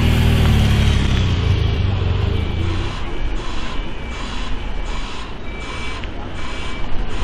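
A police motorcycle's engine passes close by and fades over the first few seconds. Then a heavy-haulage transporter's reversing alarm pulses steadily, about every two-thirds of a second, over the low rumble of a truck engine.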